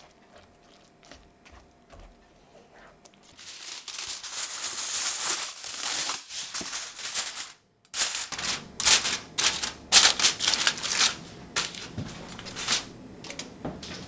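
Aluminium foil crinkling and crackling loudly as it is handled and folded. It starts about three seconds in and breaks off for a moment in the middle. Before it comes faint stirring of rice in a cast iron skillet.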